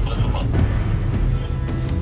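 Background music over a steady low rumble and hiss of storm wind and rain on the boat.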